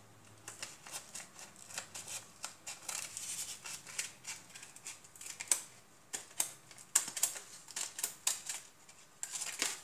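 Scissors snipping through a sheet of paper: a quick, uneven run of short, crisp cuts.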